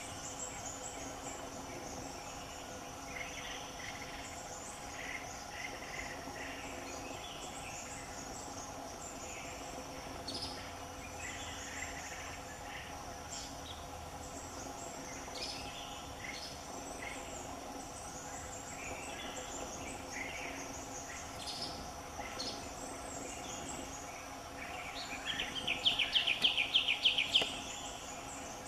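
Forest ambience: birds chirping on and off over a steady, high insect drone. Near the end, a loud, fast run of repeated bird notes lasts about two seconds.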